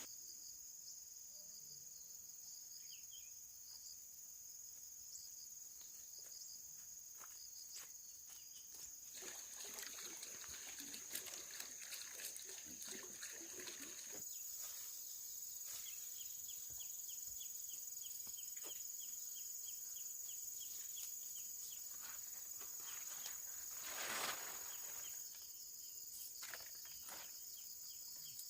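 Insects buzzing steadily at a high pitch, with scattered light clicks and taps and one louder knock late on.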